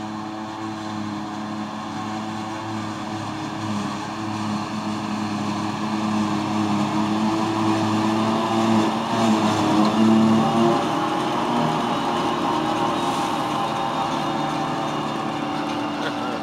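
Claas Jaguar 940 self-propelled forage harvester working under load, its engine and chopper running steadily as it picks up and chops grass, with the accompanying Claas Axion 840 tractor's engine under it. The drone grows louder as the machines come closer, peaks about ten seconds in, then eases slightly.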